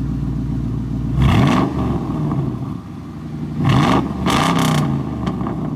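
A 2001 Mustang GT's 4.6-litre V8, with a newly fitted cold air intake, idles and is revved in three short throttle blips: one about a second in and two close together near the four-second mark. Each blip rises and falls quickly back to idle.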